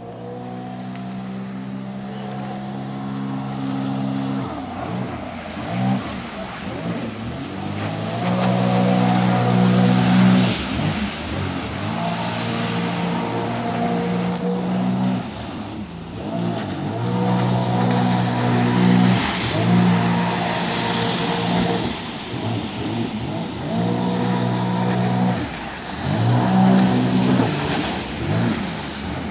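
Jet ski engine running hard and revving, its note surging and easing off several times as it turns, with the hiss of thrown-up spray at the loudest moments.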